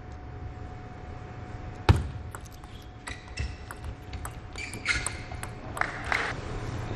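Table tennis rally: the plastic ball clicking off the rubber paddles and the table in a run of separate sharp ticks, with a louder knock about two seconds in and a few short noisy scuffs near the end.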